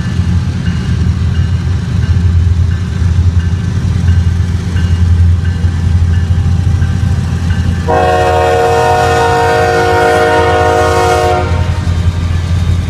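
Slow CSX diesel freight locomotives passing with a steady low rumble. About eight seconds in, the locomotive's multi-note air horn sounds one long blast of about three and a half seconds.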